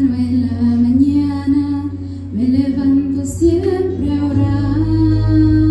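A woman singing into a microphone, holding long notes and gliding between them, over a steady low accompaniment that swells about four seconds in.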